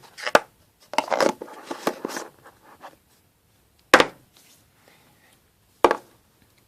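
Hands kneading and squeezing slime: a run of wet crackling squishes, then three sharp pops from air pockets bursting, spaced a couple of seconds apart.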